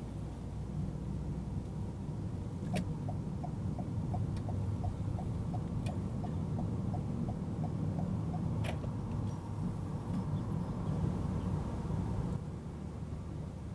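Steady low road and engine rumble inside a moving car's cabin, with a turn-signal indicator ticking about three times a second from about three seconds in until about nine seconds in while the car leaves a roundabout. The rumble drops suddenly near the end.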